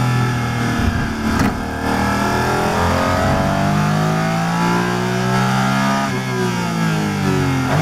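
Porsche 718 Cayman GT4 RS Clubsport's flat-six heard from inside the cockpit: two sharp pops on the downshift into fourth gear about a second in, then the engine climbing steadily in pitch under full throttle toward about 8,000 rpm. The pitch drops back about six seconds in.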